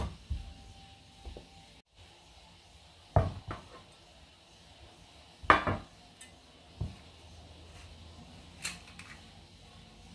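Kitchenware handled on a wooden cutting board and worktop: a handful of separate knocks and clatters as a knife, a metal baking tin and a glass olive oil bottle are put down. The loudest knock comes about five and a half seconds in, with a light clink near the end.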